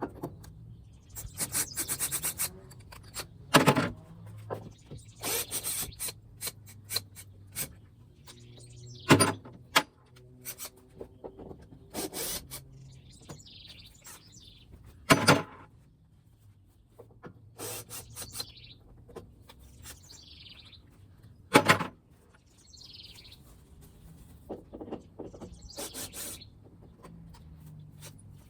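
Hand work on a truck's wooden grain box: four loud sharp knocks or clanks, roughly six seconds apart, with softer rattles and clicks between them as loose hooks and hardware are pulled off. A bird chirps again and again in the second half.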